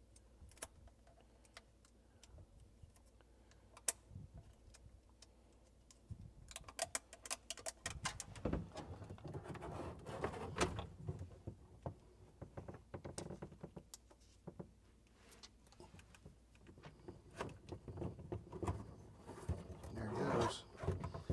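Scattered light clicks and crackles of hands handling a small plastic timer unit, peeling the backing off its adhesive tape and pressing it into place. The clicks are busiest from about six to eleven seconds in and again near the end.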